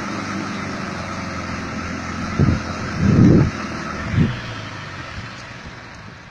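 Land Rover Discovery engine running, with three short, deep swells in sound about two and a half, three and four seconds in, the middle one the loudest and longest.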